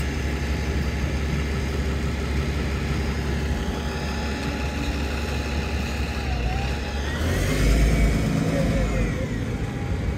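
Bus engines running steadily at a stop. About seven seconds in, a louder low rumble swells with a whine that rises and then falls as a vehicle moves off.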